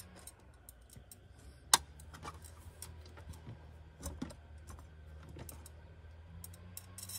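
Scattered light clicks and taps of a spa heater tube and its plastic union fittings being handled and fitted into place, with one sharper click about a second and a half in. A low steady hum runs underneath.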